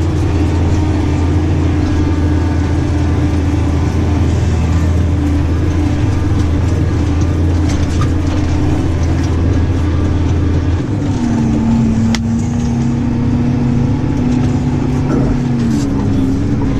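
New Holland tractor engine running steadily under load, heard from inside the cab while crossing rough pasture. About eleven seconds in, the deep drone drops away and the engine note settles a little higher, with a couple of light knocks from the cab.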